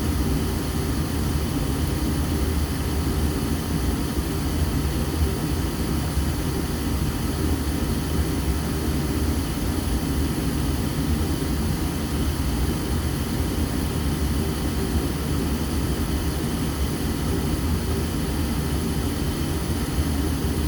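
Natural gas furnace firing steadily with its circulating blower disabled, a constant low rumble with faint steady tones over it. The heat exchanger is heating up toward the 210 °F high limit.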